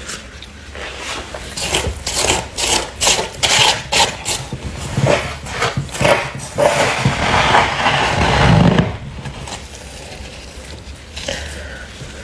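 Fingers scraping and pressing thick freezer frost: a run of short, quick scrapes, then one longer continuous scrape about seven to nine seconds in, with quieter rubbing after it.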